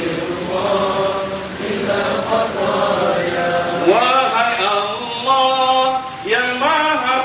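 A man's voice chanting an Islamic devotional chant, amplified through a handheld microphone, in long held notes that slide up to new pitches a few times.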